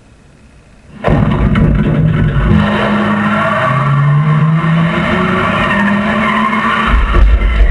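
Car-chase sound effects from a film soundtrack: after about a second of quiet, a powerful engine bursts in revving, with tyre squeal and shifting engine tones, and a deep rumble swells near the end.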